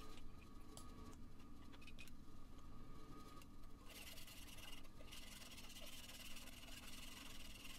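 A hand file scraping along the steel knife blade held in a vise, in long strokes beginning about four seconds in, after a few light clicks: the back of the blade being dressed level.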